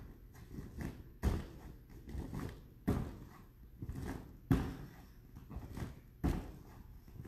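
Bare feet thudding down onto a padded vinyl gymnastics mat four times, about one and a half seconds apart, as a person holding a plank kicks both feet up and lets them drop.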